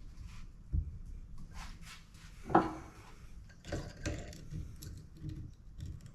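Wood and tools being handled: scattered knocks, clicks and rubbing, with one sharp knock about two and a half seconds in.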